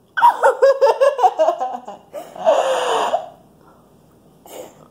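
Girls laughing: a quick run of giggles for about two seconds, then a longer breathy laugh that falls in pitch, before it goes quiet.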